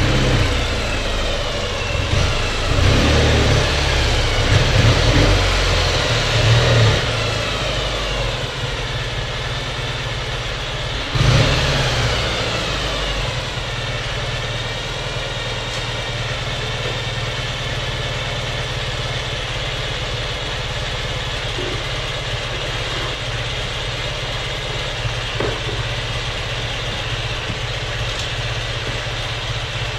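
Ural sidecar motorcycle's flat-twin engine running, rising and falling in pitch over the first several seconds, with a brief loud surge about eleven seconds in, then idling steadily.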